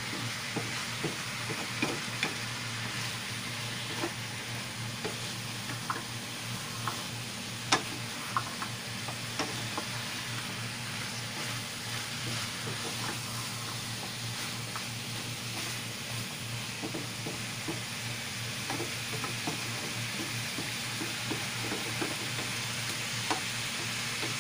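Cubed squash with bacon and ham sizzling in a frying pan while a wooden spatula stirs it, with frequent short knocks and scrapes of the spatula against the pan.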